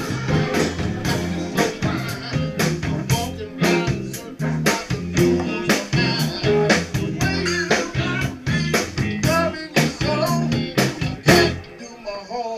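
Live blues band playing: electric guitar over bass and a drum kit keeping a steady beat. The bass and drums drop out near the end.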